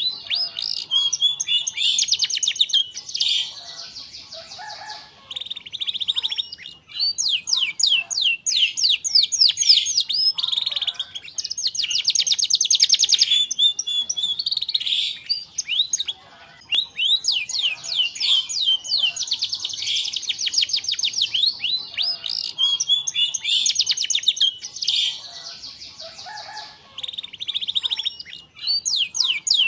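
Domestic canary singing long phrases of fast rolling trills and rapid repeated notes, broken by several short pauses.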